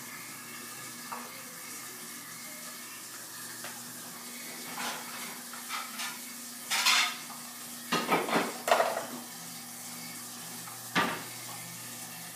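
Plastic stacking cups handled by a baby, knocking and clattering against a small wooden stool. There is a run of clatters in the middle and one more knock near the end, over a steady low hum.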